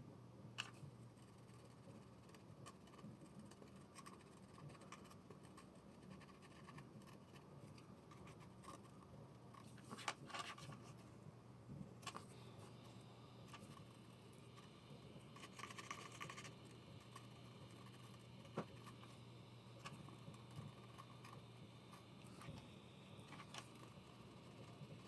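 Faint scratching and scraping with scattered light clicks of small hand tools working on a ceramic floor tile, over a low steady hum; a few slightly louder scrapes come around the middle.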